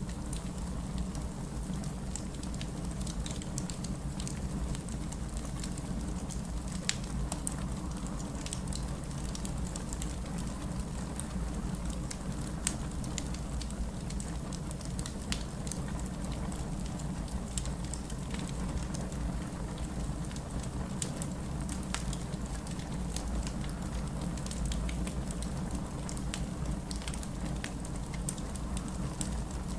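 Wood fire crackling in a fireplace, with scattered sharp pops, over a steady low rush of snowstorm wind.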